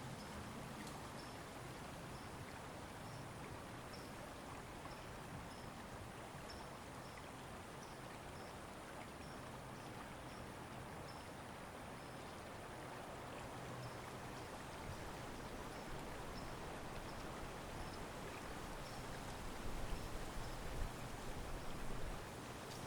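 Woodland ambience: a steady rushing like a running stream, with a short high-pitched call repeating about twice a second from a bird or insect. Near the end come a few louder low thumps and rumbles.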